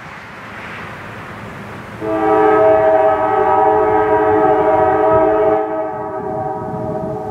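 Diesel locomotive air horn sounding a long blast for a grade crossing: a steady chord of several notes that starts abruptly about two seconds in and drops somewhat in level near the end.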